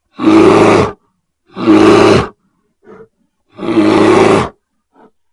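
Bear roaring three times, each roar loud and deep and lasting under a second, about a second and a half apart.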